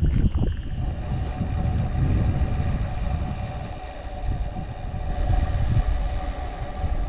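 Wind buffeting the microphone with road noise on a moving bicycle, and a steady hum that sets in about a second in.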